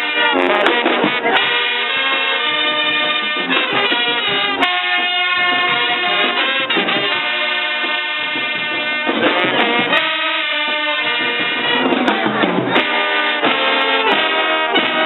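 A live band playing a song, with brass horns holding chords over a drum beat.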